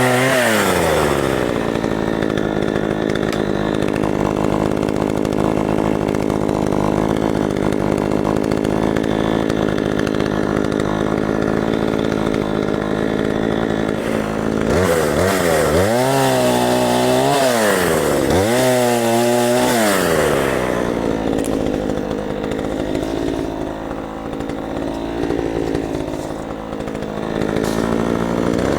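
Craftsman 18-inch two-stroke chainsaw running, held at a steady high speed for the first half while trimming brush, then revved up and let back down twice around the middle and once more near the end.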